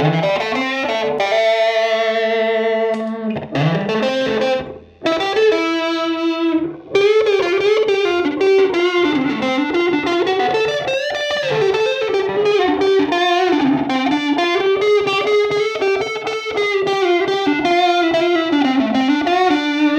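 Oscar Schmidt OS-50 electric guitar played through a Fender Mustang LT25 modelling amp on its 'Solo Midboost' factory preset: a lead tone with the mids pushed. It opens with a few long sustained notes, then runs into a single-note solo with bends and vibrato.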